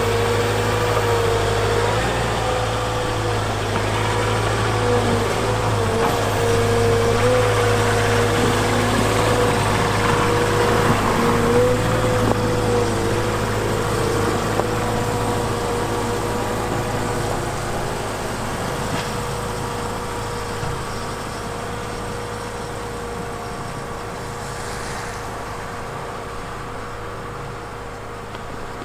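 Volvo EWR150E wheel excavator's diesel engine running steadily with a held whine, its hydraulics driving a rotary snow broom and plow. The sound grows gradually fainter over the second half.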